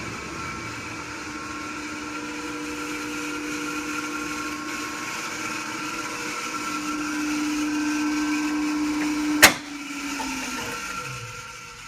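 Powermatic 66 table saw's three-phase motor running with a steady electric hum, powered through a rotary phase converter. About nine and a half seconds in, a sharp click comes, and the main hum sags in pitch and winds down while a fainter steady hum carries on.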